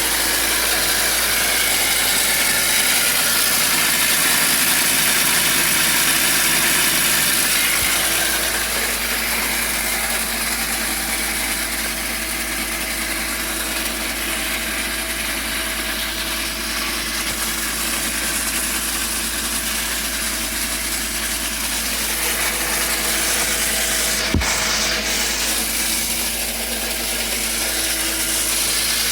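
BMW E46 323i's M52 inline-six engine idling steadily with a continuous screeching noise from the engine bay. A single sharp click is heard late on.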